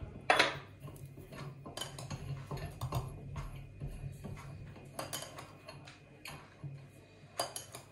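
Metal teaspoon clinking against a small metal bowl and a metal mesh sieve as sugar is scooped and sifted: scattered light clicks and taps, the loudest about a quarter second in and two more close together near the end.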